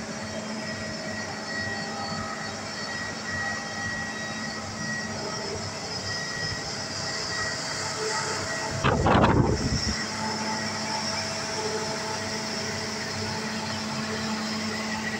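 Rubble Master RM 80GO mobile impact crusher running: a steady machinery hum with several steady whining tones. About nine seconds in, a brief loud burst of noise lasts about a second.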